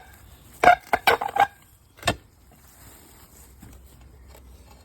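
Steel digging bar being driven into rocky soil to break up rock: a quick run of hard knocks in the first second and a half, then one sharp strike about two seconds in.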